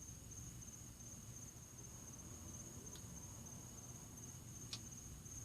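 A cricket trilling steadily, one thin high-pitched note, with two faint ticks partway through.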